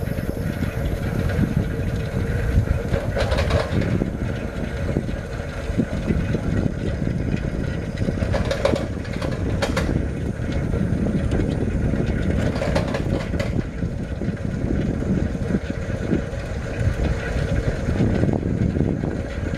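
Steady low wind and road noise on the microphone of a vehicle riding along a road, with a few short knocks and rattles, about 3 s in and twice around the middle.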